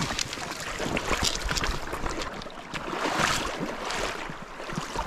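Shallow river water sloshing and splashing in a string of short, irregular splashes as a hooked trout is brought to a landing net.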